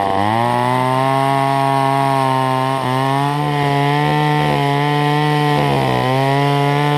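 Small two-stroke gas chainsaw revved up and held at high speed while cutting hard dead lilac wood with a dull chain. The engine pitch climbs at the start and dips briefly twice as the chain bites.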